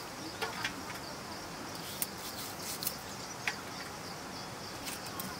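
Small dried fish being cut against an upright fixed blade: a few short, crisp clicks and scrapes, over a steady high chirring of insects.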